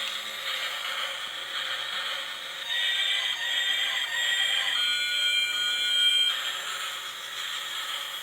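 Shrill electronic alarm-like tones over a steady high hiss, with the pitch shifting a couple of times.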